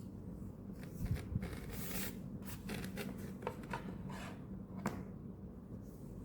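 Hands working on an opened laptop during a RAM upgrade: rubbing and scraping of hard plastic and metal parts with several sharp clicks, the sharpest about five seconds in.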